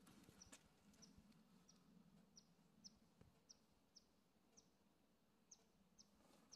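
Near silence with a faint bird chirping: one short, high note that drops slightly in pitch, repeated about twice a second.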